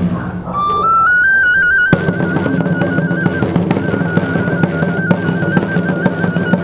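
Procession snare-type drums beating steadily, with a shrill high-pitched wind instrument over them. The wind instrument climbs in steps and then trills rapidly between two close notes. The drums drop back briefly and come in again with a hard hit about two seconds in.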